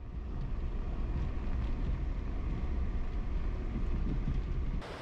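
Car driving along a paved road: a steady low rumble of engine and tyres, with wind buffeting the microphone. Right at the end it cuts off abruptly to a quieter, brighter rush of wind.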